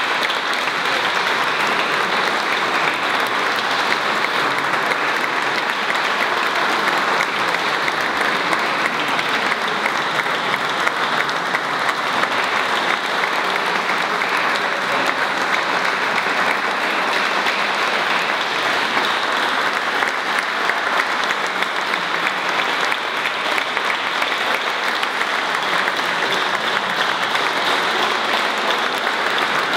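Concert audience applauding, a dense, even clapping that holds steady without a break.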